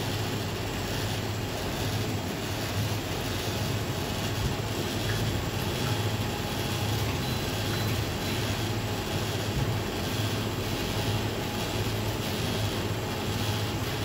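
Tap water running steadily into a stainless steel sink while small parts are rinsed by hand, over a steady low hum.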